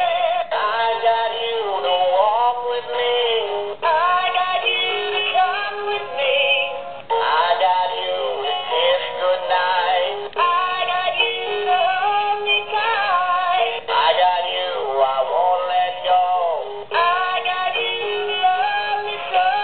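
Animated singing plush West Highland terrier toys playing an electronically sung song with a simple backing tune through their built-in speakers. The sound is thin, with no bass, and comes in phrases that break every few seconds.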